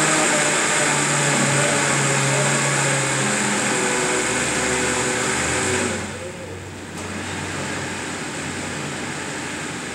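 Countertop blender running loud on a liquid mixture, its motor whirring with shifting pitch. About six seconds in the sound drops sharply to a much quieter, lower steady hum.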